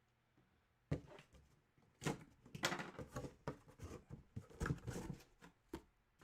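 Hands opening and handling packaging: a run of rustles and sharp clicks, starting about a second in and busiest in the middle.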